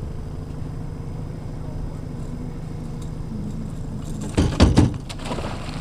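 Tohatsu outboard motor idling steadily at trolling speed, a low hum. About four and a half seconds in, a brief loud scuffle and splash as the walleye is unhooked and handled for release.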